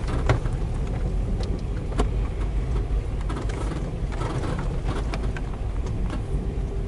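UAZ Patriot driving on rough, unpaved ground: steady low running noise with scattered short knocks and clicks. It is being driven to check for the knock in the steering, which is not felt now that the steering shaft and its U-joint have been replaced and a steering damper fitted.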